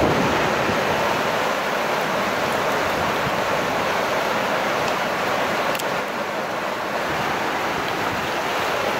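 Steady rush of a fast-flowing river current, with some wind buffeting the microphone.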